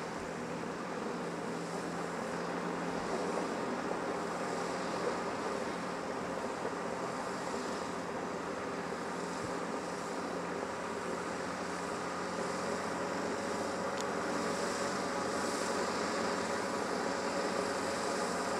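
Galloping Goose No. 5 rail motorcar's engine running steadily with a constant hum as it rolls across a trestle, growing slightly louder toward the end.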